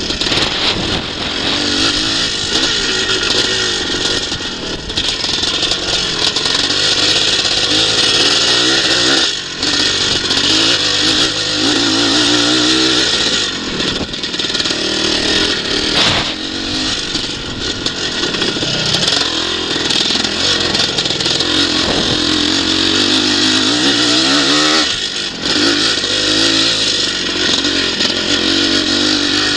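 Vintage motocross bike's engine heard from a camera on the bike, revving up and falling back again and again as the rider accelerates and shuts off around the track. It drops away briefly several times, and a steady loud hiss runs under it.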